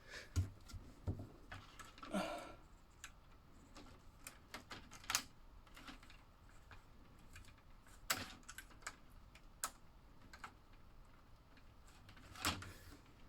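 Plastic slot car track pieces being handled and fitted together: scattered light clicks and taps, with a few louder clacks spread through.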